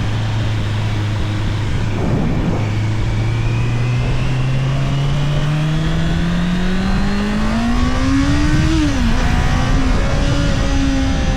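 Honda CBR650R inline-four motorcycle engine on its stock exhaust, running steadily at low revs, then accelerating with the revs climbing smoothly; near the end the pitch drops sharply at an upshift and it settles into a steady cruise.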